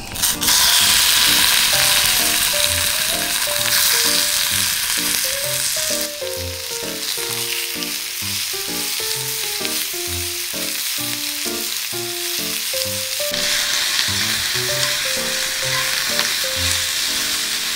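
Chicken pieces frying in hot oil in an iron skillet over a wood fire, with a loud, steady sizzle that starts suddenly just after the start. The pieces are turned with tongs as they crisp, and the sizzle eases for a while midway, then swells again.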